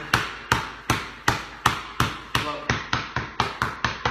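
Basketball dribbled on a concrete garage floor: sharp bounces about three a second, quickening to about five a second near the end as the dribble drops lower, each bounce echoing briefly in the garage.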